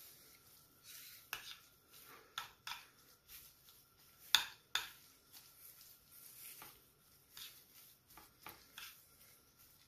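Metal spoon stirring a thick tuna and sweet corn mix in a glass dish, with irregular clinks and scrapes of the spoon against the glass. The sharpest clink comes about four and a half seconds in.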